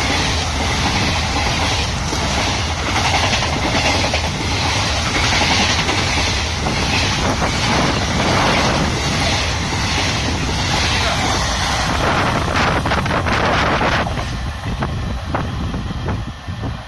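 Passenger train coaches, including double-decker coaches, rushing past at speed close by, with a steady rumble and repeated clatter of wheels over rail joints. About 14 seconds in the last coach goes by and the noise falls away to wind and a few fading clicks.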